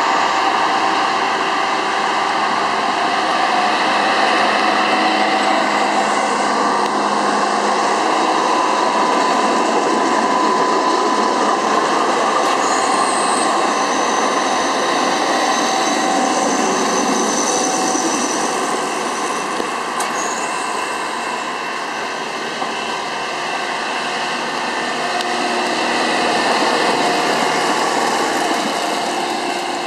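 Diesel engines of railway maintenance-of-way machines running steadily as the machines roll past on the track, with a thin high-pitched whine for several seconds in the middle.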